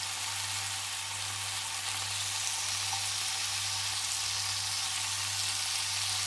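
Chicken tikka skewers sizzling in a little oil on a hot non-stick tawa over a low flame: a steady frying hiss that gets a little louder about two seconds in, the pieces just turned to cook their second side.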